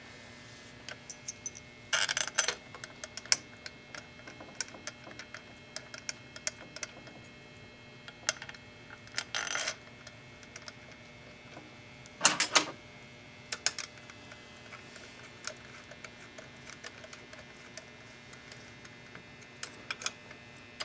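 Small metal parts being handled on a quilting machine's sewing head: scattered light clicks and clinks as screws and the handles are fitted over an aluminium adapter plate. Three brief, louder handling noises come about two, nine and twelve seconds in.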